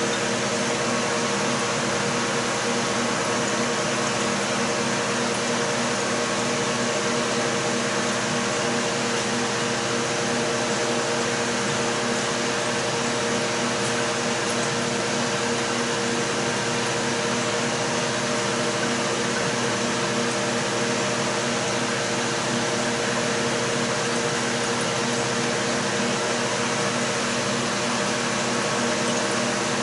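Steady mechanical hum with a hiss, like equipment running continuously: several fixed low tones under an even whoosh, unchanging throughout.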